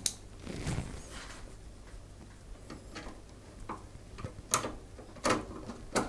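Magnetic-tip screwdriver turning a screw into a graphics card's metal bracket on a PC case: light ticks and scrapes of metal on metal, with a couple of sharper clicks near the end.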